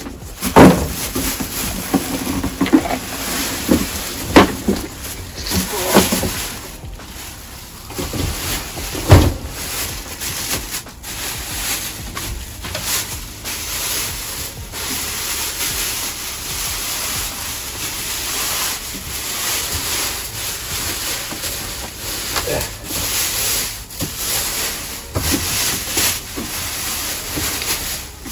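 Cardboard packing knocking and scraping as it is pulled out of a box, with several sharp knocks in the first ten seconds, then plastic wrapping crinkling and rustling steadily as it is pulled off a roof vent fan.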